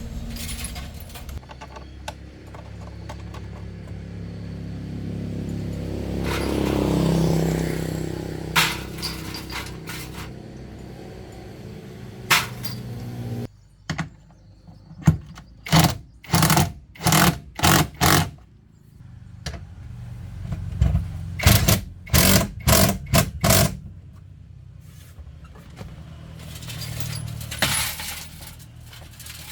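A car engine running, briefly rising in pitch and then cutting off suddenly partway through. After it stops comes a quick series of short, harsh mechanical strokes, then a steadier low hum.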